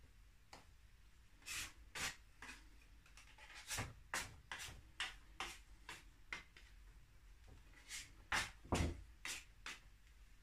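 A plastic dough scraper scraping and tapping on a wooden worktop while bread dough is handled, in short irregular strokes, with a heavier knock about nine seconds in.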